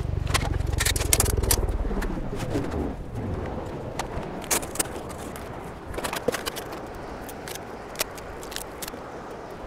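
Wind rumbling on the microphone for the first couple of seconds. A short wavering call comes about two seconds in. Then scattered clacks and knocks as camping gear is handled and firewood is laid in a small metal fire pit.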